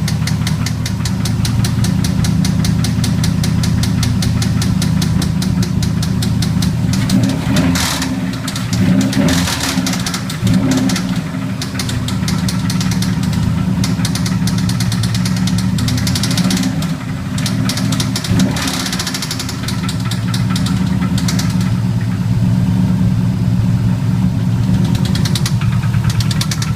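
Built Subaru EJ257 turbocharged 2.5-litre flat-four engine running with a fast, even knocking tick over the idle. It is blipped up a little a couple of times and settles back. The owner says the noise does not sound like rod knock or lifter tick, and its cause is unknown.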